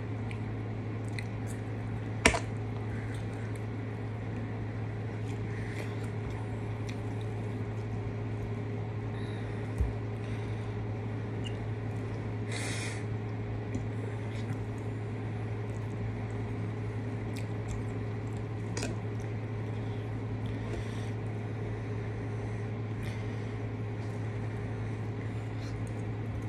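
Eating sounds: food being chewed, with a few sharp clicks of a metal fork against a china dinner plate, over a steady low hum.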